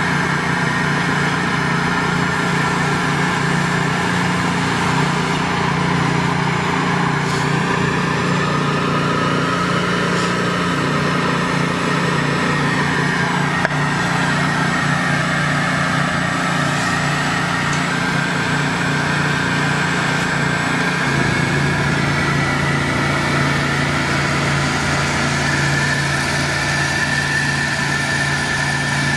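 Small engine on the ThawRig trailer running steadily, with a higher hissing whine over it. About two-thirds of the way through, the engine note drops slightly.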